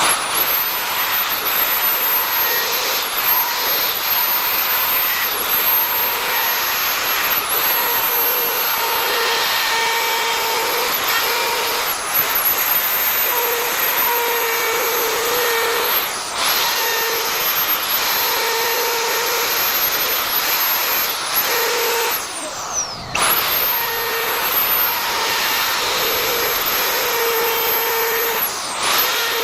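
Electric wood router running at full speed and cutting wood: a loud high whine over a noisy hiss, its pitch dipping briefly every second or two as the bit takes load. About two-thirds of the way through the pitch falls sharply and then comes straight back up.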